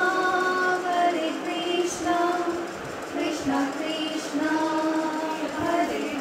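A woman singing a slow melody with long held notes.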